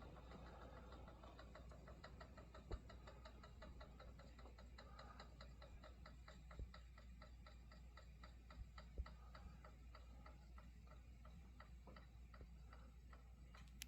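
Circa 1915 Eck Hurricane side-gear oscillating fan running, heard faintly as a quick, steady ticking of about six ticks a second, with a few soft thumps.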